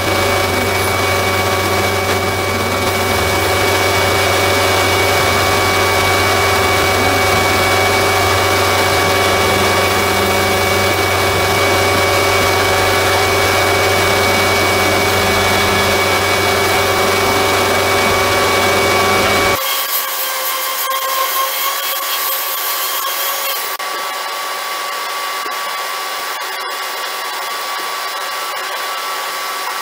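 An electric motor running steadily with a constant hum and whine. About two-thirds of the way through, the sound changes abruptly: the low hum drops away and a thinner, hissing running sound continues.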